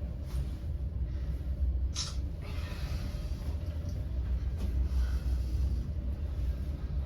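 Lift car travelling in its shaft between floors: a steady low rumble, with a brief hiss about two seconds in.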